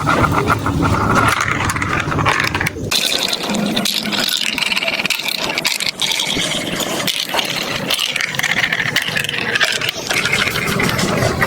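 Marbles rolling down a plastic building-block marble run track: a continuous rolling rumble with many small clicks and rattles as they clatter along the pieces.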